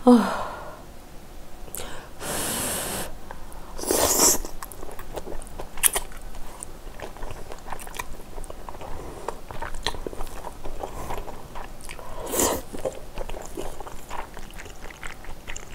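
Close-miked mouth sounds of someone eating glass noodles: a few long slurps, the biggest at about two and four seconds in, with wet chewing and lip smacks in between.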